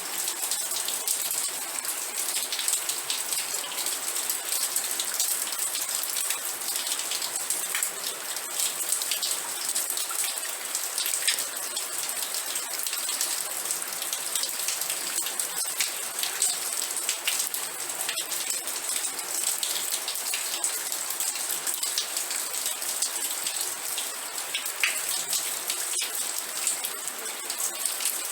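Steady rain falling, with many separate drop hits ticking over an even hiss.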